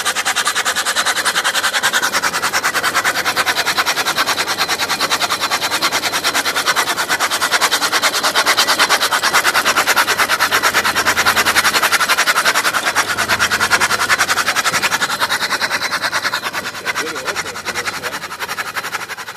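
Allis-Chalmers WC four-cylinder engine turning over unfired while the tractor is towed in gear, a rapid, even clicking clatter that fades near the end. It is a pre-start test of the driveline and of oil pressure building up.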